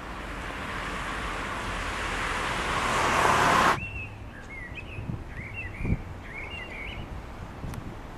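Road traffic noise swelling for a few seconds and then cut off abruptly. Small birds then chirp over a low steady rumble, with a single short knock.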